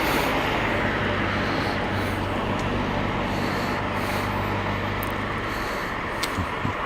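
A vehicle engine running steadily with a low hum under a broad hiss, the hum fading out about five and a half seconds in; two faint clicks near the end.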